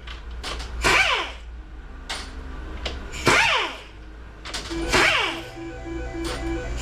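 Background music, with a falling, sweeping tone repeating about every two seconds over a low steady hum and a short pulsing tone near the end.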